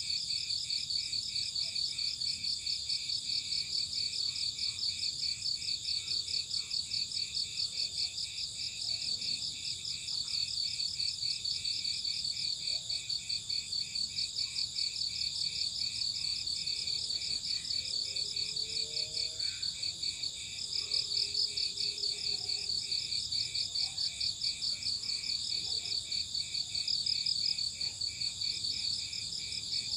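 Crickets chirping together in a steady, fast pulsing chorus of high trills that overlap one another.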